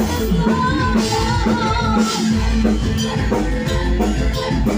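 Music with a sung vocal line and heavy bass played loud through a large hire sound system's speakers and subwoofers during a sound check.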